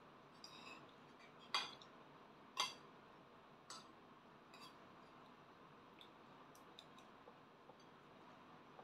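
Metal spoon and fork clinking and scraping against a plate of fried rice: a few sharp clinks, the two loudest in the second and third seconds, then fainter ticks.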